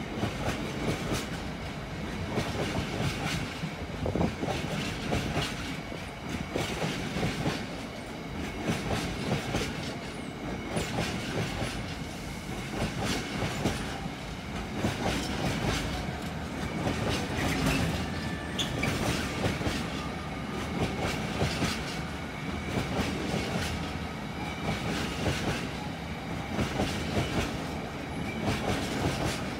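Freight train of bogie tank wagons rolling past, its wheels clicking and clattering over rail joints in a continuous run of clicks over a steady rumble, with occasional faint wheel squeal.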